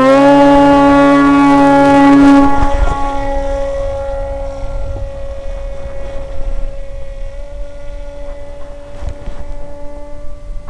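Model plane's electric motor and propeller running in flight: a loud droning hum with a strong steady pitch. About two and a half seconds in it drops in level and thins to a fainter tone over a rushing noise.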